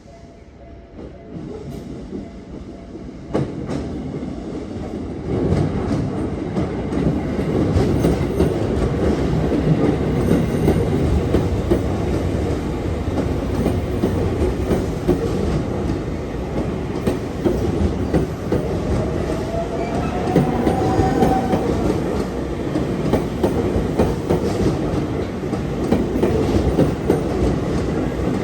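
Tokyu Meguro Line electric commuter train passing close by over a level crossing: the rumble swells over the first few seconds, then runs on with steady wheel clatter over the rail joints. A brief high whine rises and fades about two-thirds of the way through.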